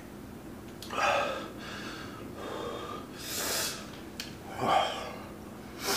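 A man breathing hard through a burning mouth, with about four heavy breaths and gasps, reacting to the heat of a Carolina Reaper–pickled egg.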